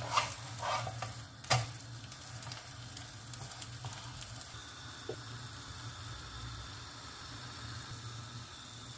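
Egg frying in a nonstick pan, sizzling steadily. A black slotted spatula scrapes and pushes at it a few times in the first second and a half, ending in a sharp click against the pan.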